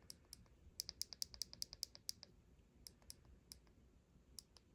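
Faint clicks of the JTS AH-1 plug-on transmitter's small buttons being pressed while stepping through its sensitivity setting: a quick run of about a dozen clicks about a second in, then a few single clicks.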